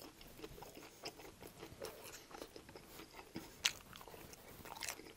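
Close-miked chewing of a McDonald's chicken nugget dipped in hot mustard and honey: faint chewing with small crunches, and one sharper crunch a little past the middle.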